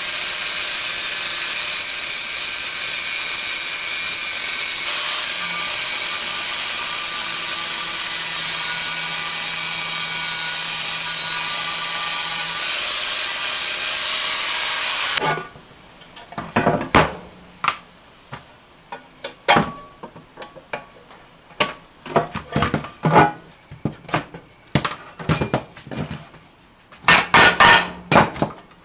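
Angle grinder running steadily, its disc cutting out the old rivets in a spade's metal handle socket; it stops abruptly about halfway through. Then come irregular metal knocks and clanks of hand tools, with a quick run of strikes near the end.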